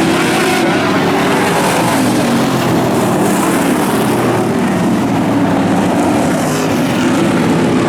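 Several street stock race cars running at speed around a dirt oval, their V8 engine notes overlapping and rising and falling in pitch.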